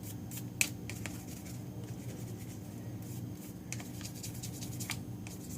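Light clicks, taps and scratching of a phone and small repair tools being handled, with a sharper click about half a second in, over a steady low hum.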